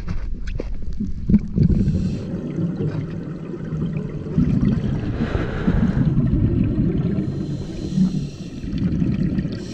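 Muffled underwater rumbling and bubbling from a scuba diver's regulator exhaust, swelling in rounds about every three seconds as each breath is let out.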